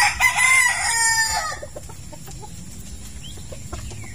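A chicken gives one loud, drawn-out call lasting about a second and a half, then it goes quieter, with only faint small clicks.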